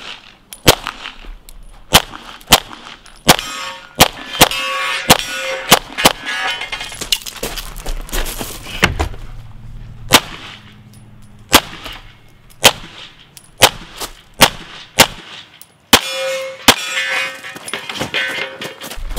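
CZ Shadow 2 pistol fired in quick pairs and strings of shots. Steel targets ring and clang after hits, about three to six seconds in and again near the end.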